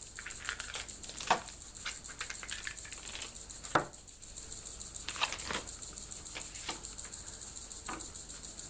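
Hands unpacking a kit of small parts: irregular clicks and knocks of a hard black plastic project box and its lid being handled and set down, with lighter rattling and rustling of small parts between. The sharpest knocks come about a second in and again just before four seconds in.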